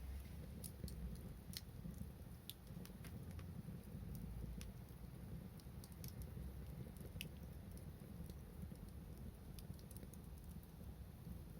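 Wood fire crackling: irregular sharp snaps and pops, a few a second, over a low steady rumble.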